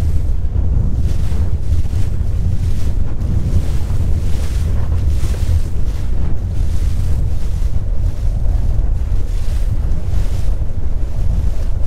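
Wind buffeting the microphone as a loud, steady low rumble, with gusts coming and going over the wash of water around a small boat.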